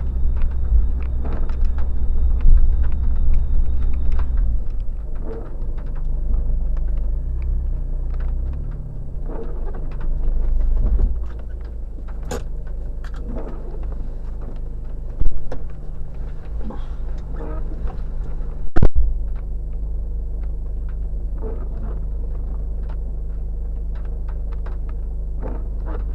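Off-road 4x4's engine running steadily at low revs, with rattling and scattered knocks from the vehicle. Two sharp, loud knocks come a little past halfway and about three quarters of the way through.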